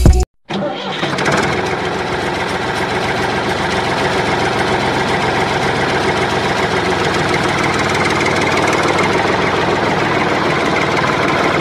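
Tractor engine sound: an engine starts up about half a second in and then runs steadily with a fast, even pulsing.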